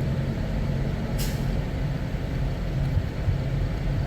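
Steady low drone of idling heavy trucks, with a short hiss of air about a second in, typical of a semi's air brakes.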